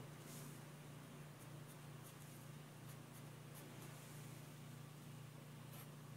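Faint scratching of a graphite pencil sketching on a sheet of paper, in several short strokes, over a steady low hum.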